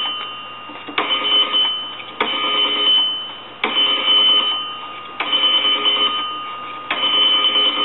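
Vintage A&E payphone's rotary dial being dialed digit after digit, each pull of the dial setting its added bell circuit tinkling. Five times, each one starting sharply and fading over about a second.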